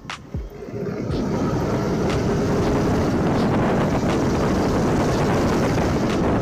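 Wind rushing over an action camera's microphone on a moving Yamaha scooter, with the scooter's engine running as it picks up speed. Quieter for about the first second, then a steady loud rush.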